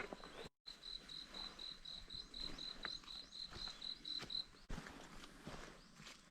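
An insect chirping: a faint, high, pulsed trill of about four chirps a second that stops about four and a half seconds in.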